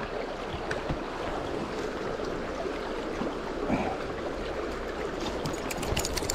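Steady rush of a trout river's current flowing around a landing net held in the water, with a few small clicks and knocks of handling near the end.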